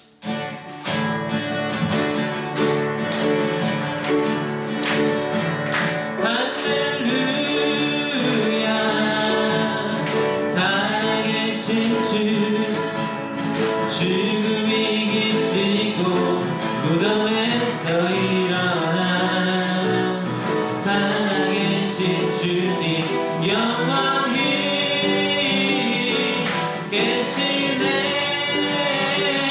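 A man sings a worship song into a microphone, accompanying himself on a strummed acoustic guitar. The guitar plays alone at first, and the voice comes in about six seconds in.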